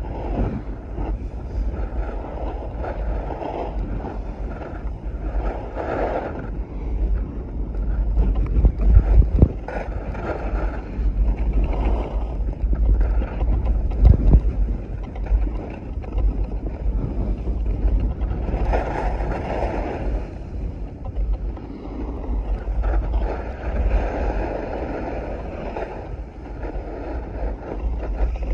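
Wind buffeting a phone's microphone during a downhill ski run, picked up through the waterproof pouch the phone is sealed in. It is a steady low rumble that swells and eases every few seconds.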